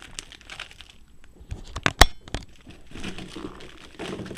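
Plastic packaging crinkling as it is handled. About two seconds in comes a short cluster of sharp clicks from hard plastic spinning-top parts, the loudest a single snap.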